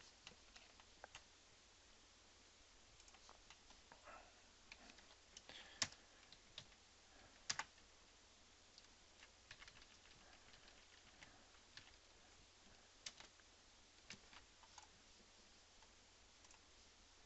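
Near silence with faint, scattered clicks of a computer keyboard and mouse, a few stronger single clicks standing out.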